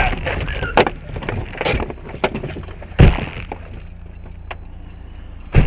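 Vehicle collision sounds: a few sharp knocks and cracks, then one loud sudden impact about three seconds in and another near the end, over steady low road noise.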